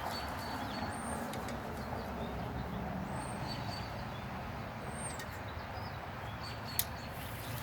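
Outdoor background: a steady low noise with faint, scattered bird chirps, and a single sharp click about seven seconds in.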